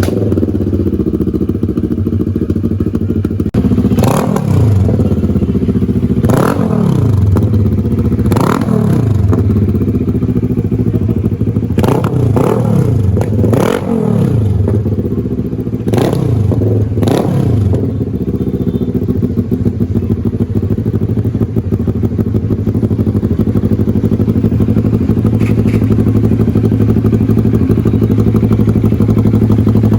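Bristol Bobber 650 motorcycle engine breathing through a new aftermarket muffler, revved in about seven short throttle blips, each rising and falling back, then settling into a steady idle a little over halfway through.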